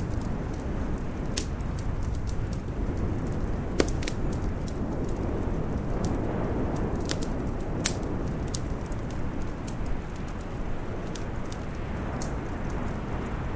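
Wood fire crackling in a fireplace: scattered sharp pops, the strongest about four and eight seconds in, over a steady low rumble.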